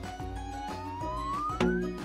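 Cartoon background music with a steady beat. Over it a whistle-like tone slides upward in pitch, then a sharp hit with a short low boom lands about one and a half seconds in.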